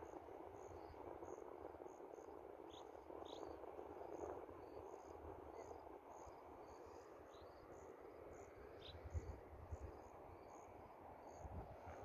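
Faint crickets chirping in an even rhythm, about two or three short high chirps a second, over a low steady hiss and an uneven low rumble.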